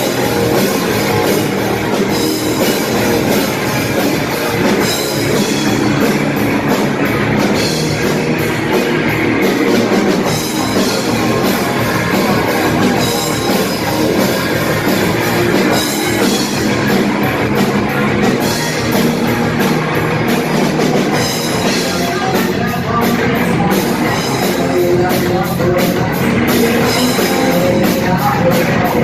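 Rock band playing a loud, driving heavy rock song, with a drum kit keeping a steady beat under dense distorted instruments.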